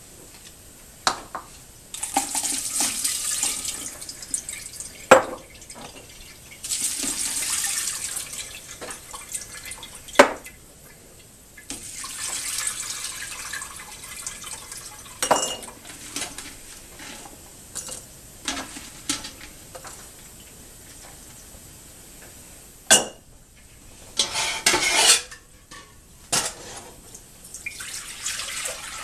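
Water poured out of glass canning jars of sliced jalapeños through a plastic colander into a stainless steel stock pot: several splashing pours of two or three seconds each. Between the pours come sharp single clinks and knocks of the jars and the pot. Near the end, water is poured from the pot into a glass measuring bowl.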